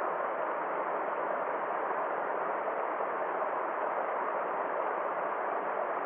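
Small rocky mountain stream rushing and splashing steadily over stones in little cascades.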